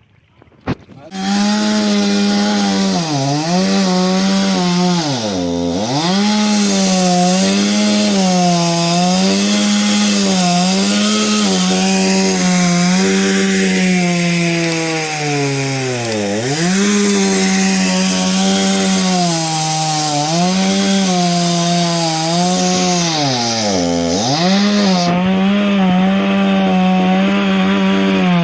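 Chainsaw starting up about a second in and running at high revs while cutting wood, its pitch wobbling under load. Three times it drops briefly to a low idle and revs back up.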